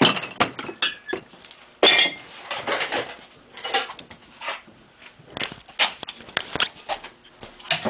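Laboratory glassware clinking and knocking together in a tub, with the rustle of a plastic bag, as it is handled; a string of irregular sharp clinks and scrapes, the loudest about two seconds in.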